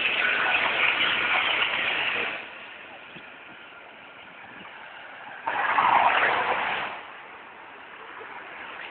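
City street traffic noise: two loud rushes of noise from passing vehicles, the first lasting about two seconds and the second, starting about five and a half seconds in, lasting about a second and a half, over a steady lower background hum.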